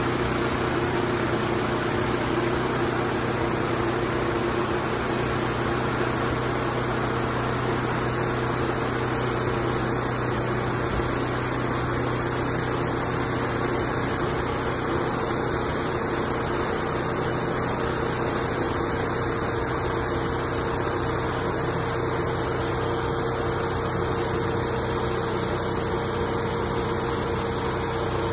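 Wood-Mizer LT28 portable band sawmill running steadily as the sawhead makes a cutting pass along a log: a steady engine hum with an even hiss of the band blade over it.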